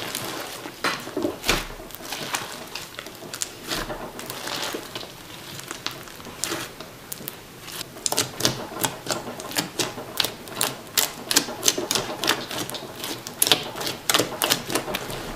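White slime filled with styrofoam balls being squeezed and kneaded, giving crunchy crackling and popping clicks that come thicker and louder in the second half.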